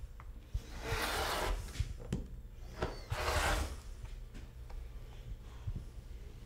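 Cow leather being slid and rubbed across a workbench as it is laid out for cutting: two drawn-out rubbing strokes, about a second in and past the three-second mark, with small knocks between.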